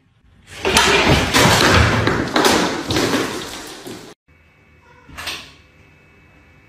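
A loud crash and clatter with several heavy thumps, lasting about three and a half seconds and cutting off suddenly. A short knock follows about a second later.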